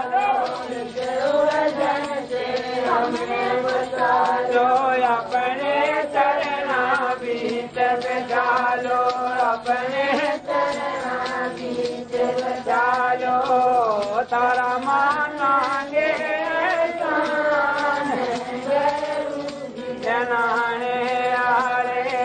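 A man singing a Hindi devotional bhajan in a drawn-out, chant-like melody, with musical accompaniment.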